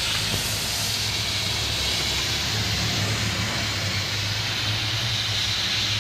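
Steady hiss of refrigerant escaping from a Toyota Revo's air-conditioning system, over a low steady hum. The leak is taken as the cause of its weak cooling.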